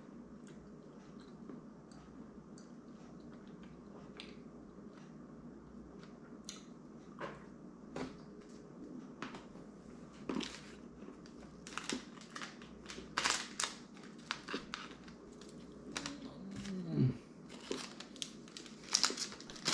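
Quiet chewing, then from about halfway the sharp crinkling and crackling of a Hershey's chocolate bar wrapper being handled and opened, in quick irregular crackles.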